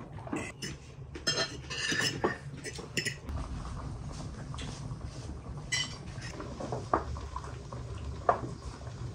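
Cutlery clinking on plates and glasses as people eat, densest in the first three seconds. Then a steady low rumble with a few single clinks as glass canning jars are handled in a large pot of hot water.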